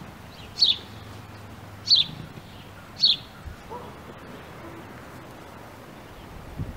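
A bird chirping: three short, high chirps about a second apart, then they stop.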